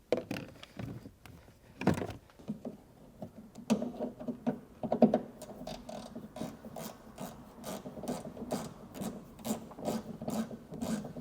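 Hand ratchet with a triple-square bit clicking in quick runs, with scraping and rubbing of metal and plastic, as the M8 bolts holding the liftgate latch are loosened.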